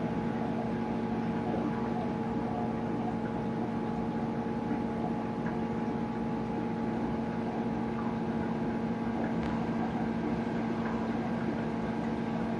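Steady electrical hum of the aquarium's pumps and filtration running, with a hiss of moving water underneath.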